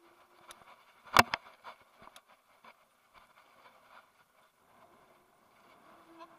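Kugoo G Booster electric scooter riding over a paved path: a sharp knock about a second in, then lighter rattling clicks from the scooter and its mounted camera as it goes over the surface. A faint steady whine from the scooter's motor comes in near the end.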